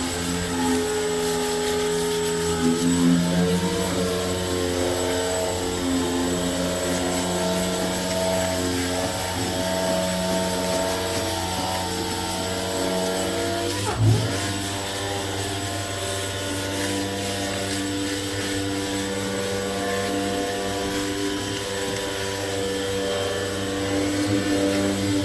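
A machine's motor running steadily, a hum made of several pitched tones that drift slightly in pitch, with a single short knock about fourteen seconds in.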